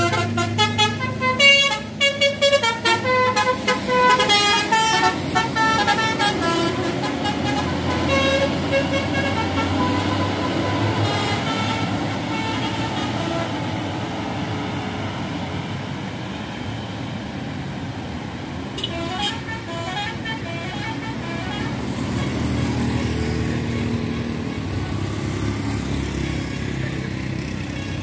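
Bus telolet horns (Basuri multi-tone air horns) toot rapid melodies of several notes through roughly the first five seconds, over a running bus engine. A short burst of rising horn notes comes again about two-thirds of the way through, and the engine keeps running.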